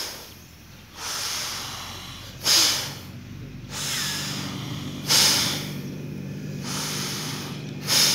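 Slow, deep Bhastrika pranayama breathing through the nose in an even rhythm: each long, softer breath is followed by a short, loud forceful one, a cycle about every two and a half seconds, three times.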